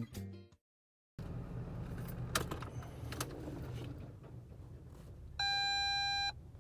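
Steady low rumble inside a truck cab, with a few light clicks, then a single steady electronic beep held for about a second near the end.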